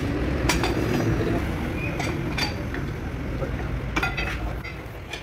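Steel hand tools clinking and knocking against a Hino truck gearbox casing under repair: a handful of sharp metallic clinks a second or so apart, over a steady low rumble.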